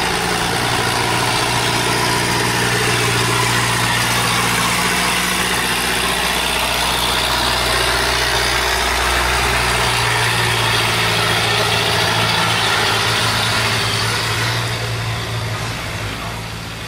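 A cargo boat's engine running steadily as the boat pushes upstream through a sluice gate against a strong current, over the loud rush of fast water churning through the gate. About ten seconds in the engine's deepest note drops away, and the sound fades somewhat near the end.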